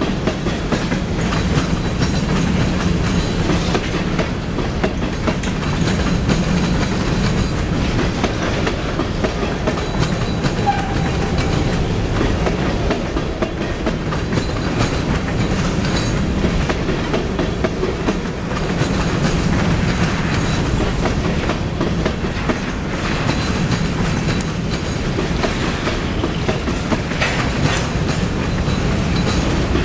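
Empty covered hopper cars of a freight train rolling past, with a steady rumble and wheels clicking over the rail joints.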